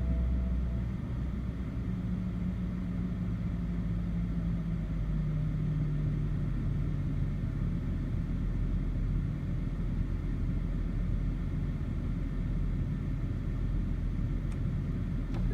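BMW E60 530i straight-six engine idling rough, its low hum wandering slightly in pitch; the rough idle was traced by the owner to a faulty MAF (mass airflow) sensor.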